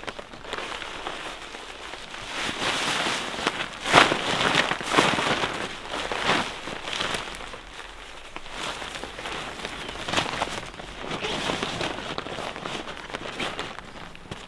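Rain falling, a dense crackling hiss with scattered sharper drop hits, the loudest about four seconds in.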